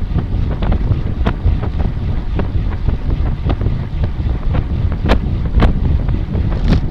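Strong wind buffeting the microphone: a heavy, rumbling noise, with irregular sharp clicks and knocks throughout, the loudest near the end.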